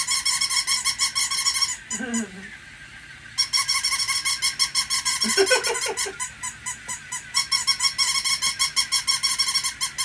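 Battery-operated toy puppies yapping through their small speakers in fast, tinny, repeating electronic barks. The barking stops for about a second and a half near two seconds in, then starts again.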